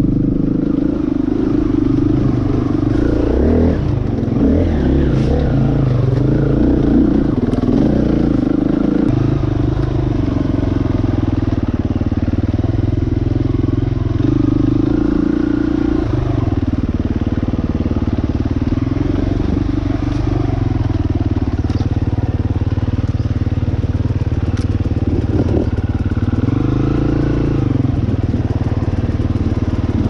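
Dirt bike engine running hard on a trail ride, its pitch stepping up and down with throttle and gear changes, with a quick rise and fall in revs near the end.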